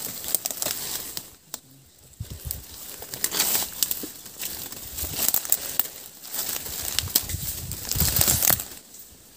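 Dry leaves and twigs rustling and crackling as someone pushes on foot through a bamboo thicket: an uneven string of crackles and rustles, with a short lull about a second and a half in.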